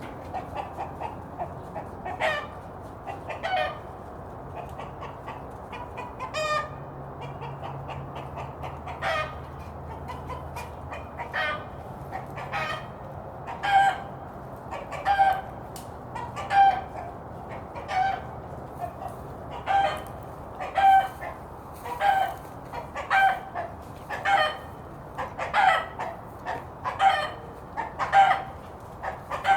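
Rooster giving its danger warning call, the alarm it sounds on spotting a hawk or other threat to send the hens into hiding. A few scattered short calls at first, then short calls repeating steadily about once a second.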